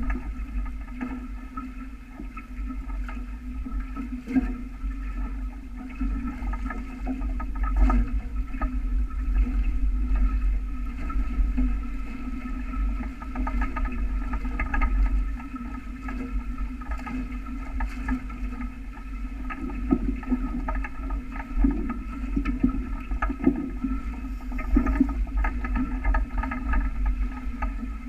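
Water rushing and splashing along the hulls of a sailing catamaran under way, with wind buffeting the microphone in a continuous, uneven low rumble.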